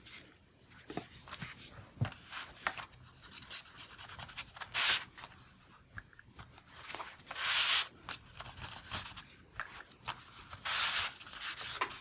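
Hands rubbing and smoothing a handmade paper envelope flat on a tabletop. Three longer swishes of about a second each come at roughly five, seven and a half and eleven seconds, with light paper rustles and small taps between them.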